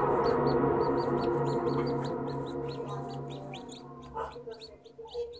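Newly hatched chicks peeping: short high peeps, about three a second. Background music fades out under them.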